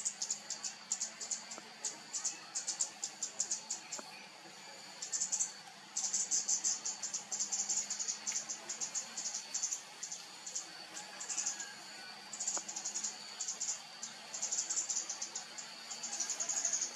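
Insects chirping: rapid, high-pitched pulsed trills that come in stop-start bursts, over a steady high whine.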